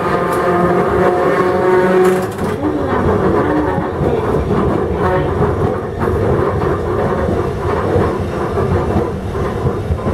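Iyo Railway tram car Moha 61 heard from its cab: the traction motors whine steadily under power for the first couple of seconds, then power is shut off and the car coasts on with a rumble of wheels on street track and irregular clacks over rail joints.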